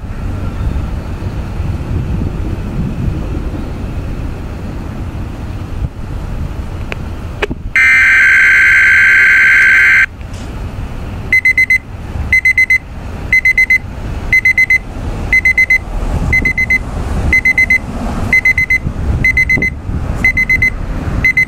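Weather radio alert activation during a monthly test. After several seconds of low hiss, a loud steady electronic alert tone sounds for about two seconds. Then the portable weather radio beeps its alarm in short, high double beeps about once a second.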